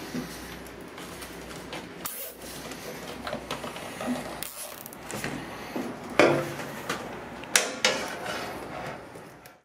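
Wires being handled and pulled into place: irregular rustling and rubbing of cables and plastic hose, with a few sharp knocks, the loudest about six seconds in and twice around seven and a half seconds in.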